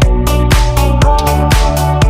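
Electronic dance music with a steady four-on-the-floor beat, about four hits a second, over a heavy bass line and synth melody.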